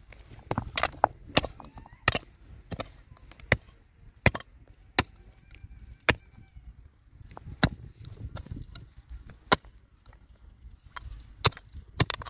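A small wooden-handled hand hoe chopping into stony soil, its metal blade striking earth and stones in irregular sharp blows, about one or two a second, as wild plants are dug out.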